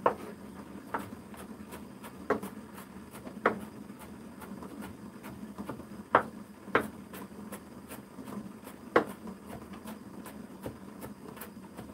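Kitchen knife chopping vegetables on a wooden cutting board: sharp knocks of the blade on the board at uneven intervals.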